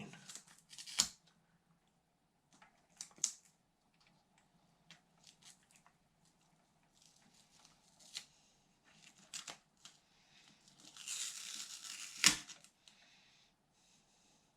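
Handling of a self-adhesive screen gasket on a resin 3D printer's LCD screen: scattered light taps and clicks, then a rustling, tearing sound of adhesive and backing about eleven seconds in, ending in a sharp click.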